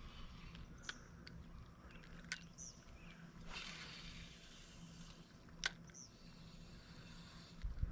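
Faint outdoor ambience by a lake, with a few sharp ticks and a brief hiss about halfway through.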